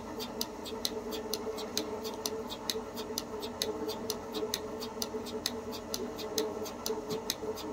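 Cow milking machine running: the pulsator clicks rapidly and evenly, several times a second, over the steady hum of the vacuum pump, with the teat cups attached and milking.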